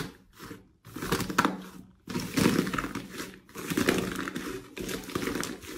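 Slime being squeezed and pressed by hand, in several presses of about a second or more each, the longest in the second half.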